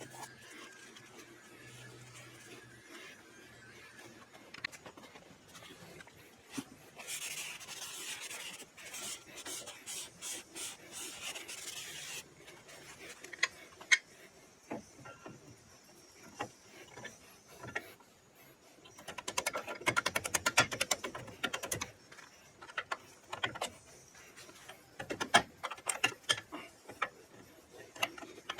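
Hand-tool work sounds on a car being assembled: scattered clicks and knocks, a stretch of rasping scrape starting about seven seconds in, and a quick run of rapid clicks about two-thirds of the way through.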